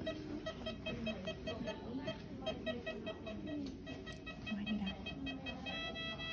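Veterinary patient monitor beeping, a short, high, evenly spaced beep several times a second, the pulse tone of a monitor wired to a sedated cat. Near the end the beeps lengthen into steadier tones.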